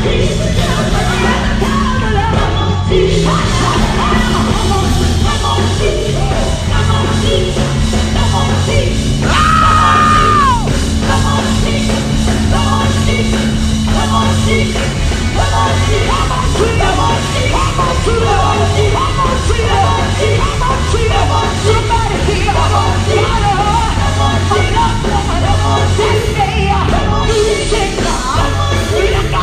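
Live gospel music: singers shouting and singing over a loud band with a steady beat. About nine seconds in, a high note bends downward.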